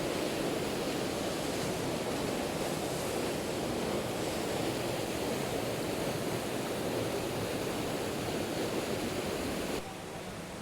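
Steady rushing of falling water from a waterfall, a dense, even noise. About ten seconds in it drops suddenly to a quieter hiss.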